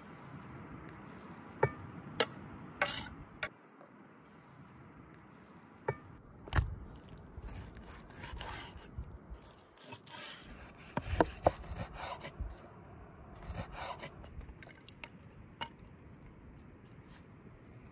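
Kitchen knife scraping and tapping on a wooden cutting board as raw meat is scraped off and liver is sliced: scattered sharp knocks and short scraping strokes, with a cluster of louder knocks about two-thirds of the way through.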